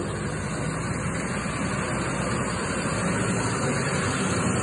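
Diesel engine of an MST-2200VD tracked crawler dumper running steadily close by, getting a little louder near the end.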